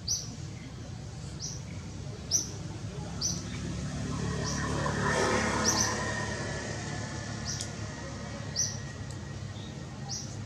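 A bird chirping: short high chirps about once a second. A low rumble swells and fades around the middle.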